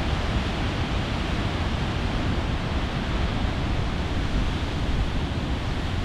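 Steady rush of heavy ocean surf breaking, with wind buffeting the microphone.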